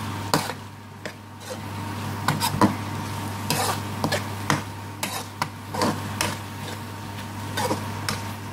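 A spoon stirring and scraping chicken, onions and biryani spice sauce around a frying pan, in irregular strokes about every half second, over a steady low hum. This is the spice mix being cooked through with the chicken.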